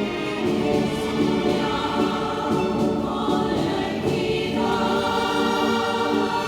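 Choir singing sustained chords with orchestral accompaniment, a live choral-orchestral performance; higher voices enter about four and a half seconds in.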